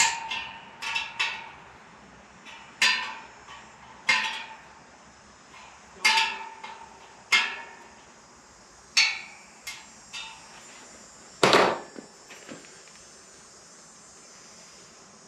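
Sharp metallic clinks, each with a brief ring, from a wrench working the spoke nipples of a wire-spoked motorcycle wheel as they are tightened, coming irregularly about once a second. A louder, duller knock comes about eleven and a half seconds in, then it goes quiet.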